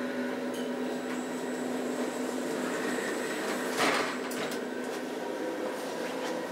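OTIS hydraulic elevator humming steadily, then its doors sliding open, with a short knock about four seconds in, after which the hum drops away.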